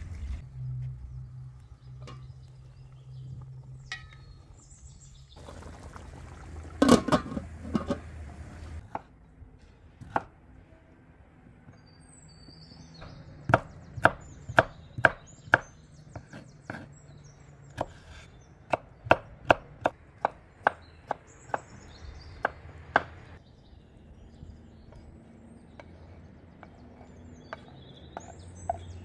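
Kitchen knife cutting peeled potatoes on a wooden cutting board: a run of sharp knocks of the blade on the board, about two a second, for several seconds in the middle.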